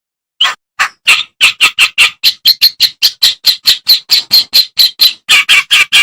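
A kerak basi (clamorous reed warbler) singing: a fast, even run of short harsh notes, about four or five a second, beginning about half a second in.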